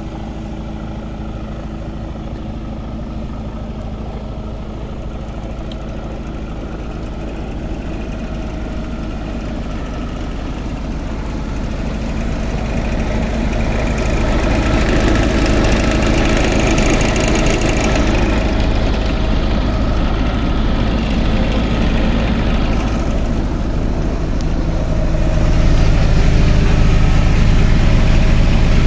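Mercedes-Benz Actros 2542 truck's straight-six diesel engine idling steadily, growing louder about halfway through and again near the end as it is heard from beside the wheels and under the chassis.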